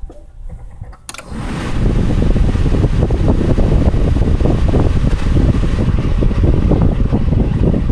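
1993 Honda Civic's electric radiator cooling fan switching on with a click about a second in, spinning up over about a second and then running steadily and loudly. The fan switch is jumpered with a paper clip, so the fan running shows the fan relay is working properly.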